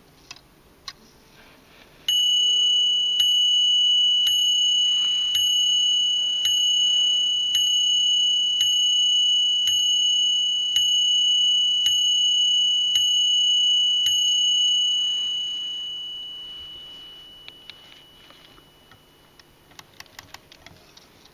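The hammer of a vintage German mechanical mantel clock's strike train hits its single brass bell twelve times, about once a second, each strike ringing on into the next. After the last strike the ringing fades out over a few seconds. A few light clicks of the movement being handled come before and after the strikes.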